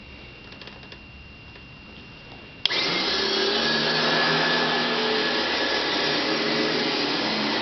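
1966 Kenmore Duo Power upright vacuum switched on about two and a half seconds in with a sharp click, its motor then running steadily. Before that, only faint room tone.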